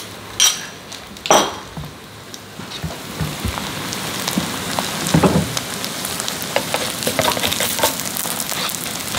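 A vegetable pancake frying in oil on high heat: a crackling sizzle that builds over the first few seconds and then holds steady with many small pops. A couple of sharp knocks come in the first second and a half.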